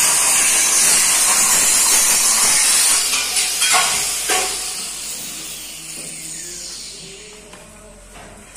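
Loud steady hiss that fades away gradually from about three seconds in, with a few sharp knocks around the middle.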